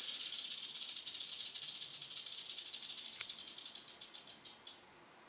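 Western diamondback rattlesnake (Crotalus atrox) buzzing its tail rattle, a defensive warning from an agitated snake. The buzz fades and slows into separate clicks, then stops shortly before the end.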